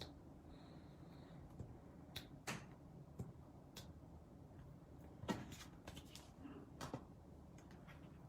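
Faint, scattered small clicks and taps of paper-craft materials and tools being handled on a desk, about a dozen in all, the sharpest about five seconds in.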